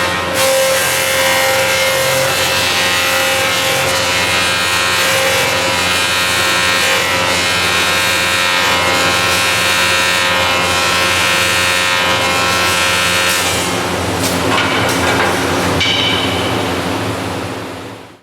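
Wood-turning copy lathe milling a wooden handle with its cutter running: a steady machining noise with constant whining tones, fading out near the end.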